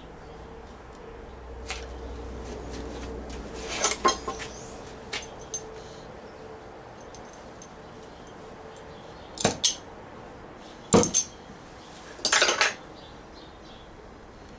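Metal tools and parts clinking and clanking as they are handled and set down: scattered sharp ringing knocks, in pairs around four, nine and a half and eleven seconds in, and a short rattling clatter near the end, over a faint steady hum in the first half.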